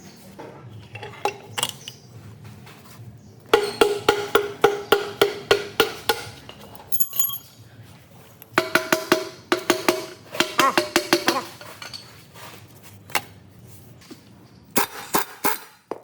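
Hammer striking metal in quick runs of ringing blows, about four a second, two runs of a dozen or so strikes each, with scattered lighter knocks between.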